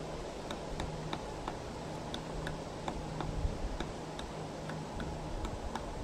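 Pileated woodpecker pecking at a pressure-treated wooden post: light, uneven taps of the bill on wood, about three a second, as it digs after insect larvae.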